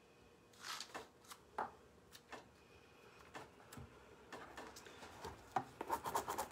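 Faint taps and handling noises as a lampshade is turned and touched. Near the end come quick scratchy strokes of fingers rubbing a rub-on transfer down onto the textured shade.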